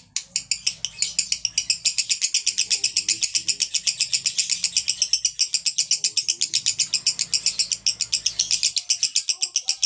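Male lovebird singing an unbroken run of rapid, high-pitched chattering notes, about eight a second: the long continuous 'konslet' style of lovebird song.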